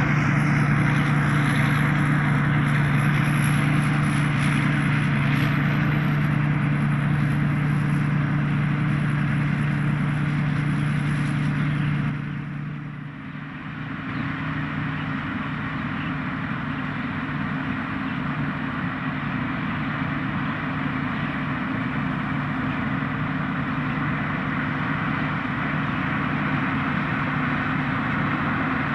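Thai Seng Yont rice combine harvester running steadily under load, its engine hum under the whir of the machinery. About twelve seconds in the sound drops away briefly, then comes back a little quieter.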